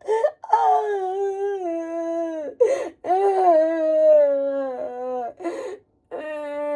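A woman wailing and sobbing: three long, high-pitched crying wails, each sagging a little in pitch, broken by sharp gasping breaths between them.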